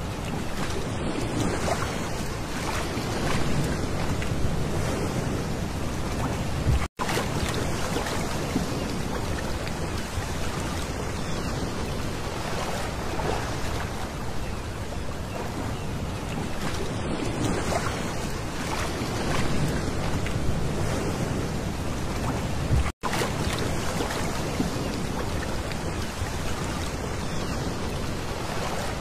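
Small waves lapping and washing up over a pebble shore: a steady wash of water that swells every few seconds. The sound cuts out for an instant twice.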